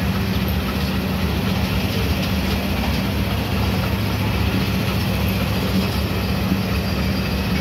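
Passenger coaches of a departing express train rolling past, a steady rumble of steel wheels on the rails with a constant low hum.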